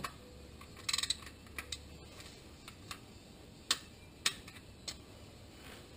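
Torque wrench clicking on a bolt beside the Corvette Z06's oil filter as it is tightened, the wrench set to about 20 foot-pounds. A quick run of ratchet clicks comes about a second in, then three sharp single clicks about half a second apart.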